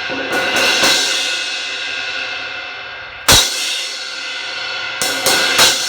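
Cracked Sabian 18-inch HHX Evolution crash cymbal struck repeatedly with a stick and left to ring: a few quick hits in the first second, one hard hit a little after three seconds, and three more near the end. The serious cracking gives it a sound that is pretty bad.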